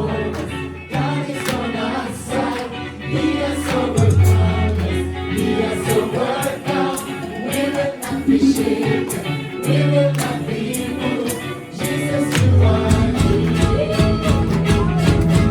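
Gospel worship music: a group of singers with a band, over sustained bass notes and a regular drum beat.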